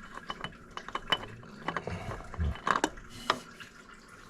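Irregular metallic clicks, clinks and knocks of tools and metal parts being handled during an oil-filter change, with a couple of dull thumps about halfway through.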